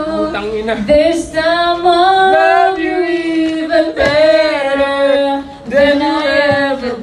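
A woman singing into a handheld microphone, long held notes that bend in pitch, with brief breaks between phrases.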